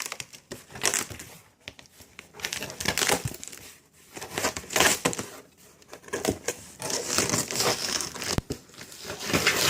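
Packaging being handled and rummaged through: irregular crinkling and rustling in short bursts with brief pauses.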